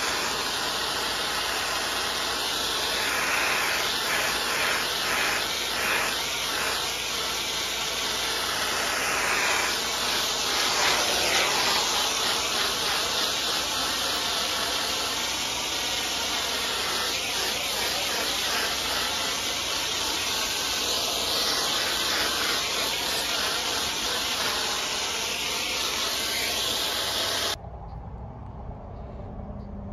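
Pressure washer spray hissing steadily, cutting off suddenly near the end.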